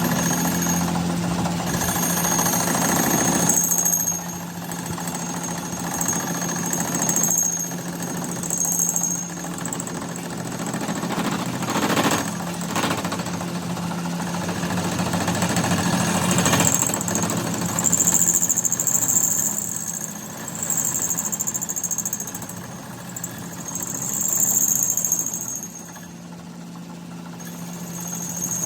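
Workshop machinery running with a steady low hum, with a high hiss that comes and goes over it and a few sharp knocks around the middle.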